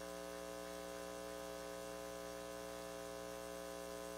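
Steady electrical mains hum with a faint hiss, a buzz of several fixed tones that does not change.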